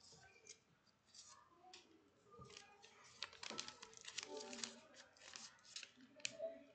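Folded paper being handled and unfolded, with faint rustling and a string of quick crackles through the second half.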